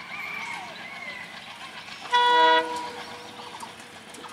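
A single short horn blast from an Alco WDM3A diesel locomotive, about half a second long, a little past the middle. Fainter wavering high tones come before it.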